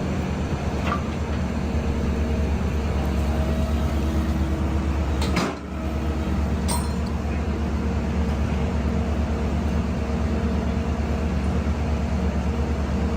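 Heavy vehicle's engine running steadily at idle, a low even drone. About five and a half seconds in it briefly drops away with a click, then carries on.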